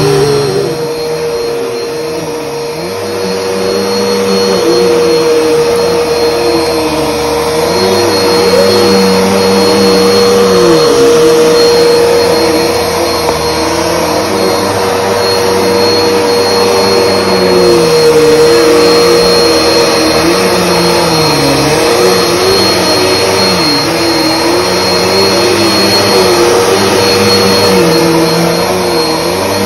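Upright vacuum cleaner running on carpet: a steady motor whine over rushing air, with a lower hum that slowly wavers in pitch as the machine is pushed back and forth.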